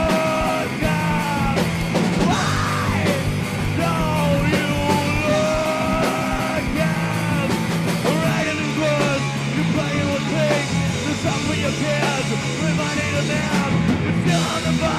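Live rock band playing: electric guitars and drum kit with loud, shouted group vocals.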